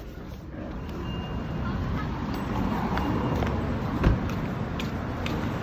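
Rumbling traffic noise that grows louder over the first couple of seconds, then holds steady, with a sharp knock about four seconds in.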